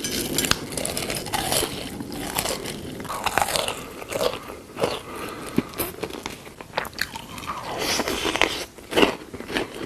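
Close-miked eating sounds: a person biting and chewing crunchy food, with irregular wet smacks and crackles.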